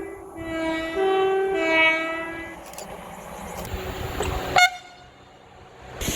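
Two-tone train horn sounding alternating high and low notes, four notes in all, then fading into the noise of the passing train. A short, higher toot comes about four and a half seconds in, and the sound then cuts off abruptly.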